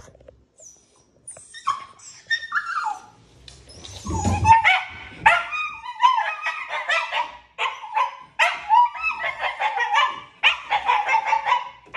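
Pomsky puppy screaming while shut in a crate: high, falling yelps and whines, sparse at first, then almost nonstop cries and barks from about four seconds in. It is the separation-anxiety screaming she does whenever she is left alone in the crate.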